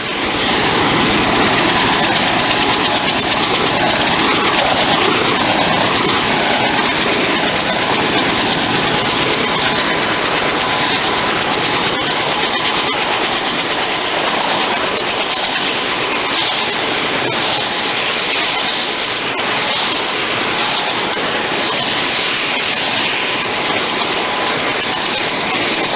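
Helicopter engines and rotor running, a loud, steady rush of noise with a thin steady whine, heard from inside the cabin.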